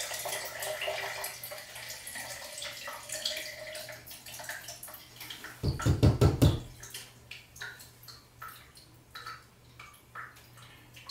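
Water draining and dripping from an open shower arm just after the valve is shut off: a fading trickle, then separate drops every half second to a second. The owner hopes it is only water left in the pipe, not a leak past the new valve cartridge. A short burst of dull thumps comes about six seconds in.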